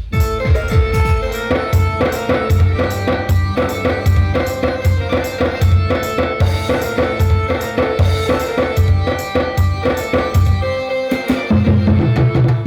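Electronic dance track built on a fast, steady tasa drum beat with heavy bass hits and held synth notes. The beat briefly drops out near the end, then comes back with a deeper bass line.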